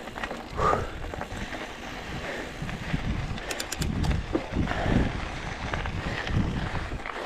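Wind buffeting the microphone, a low uneven rumble, with irregular knocks and a short burst of fast rattling clicks about halfway through.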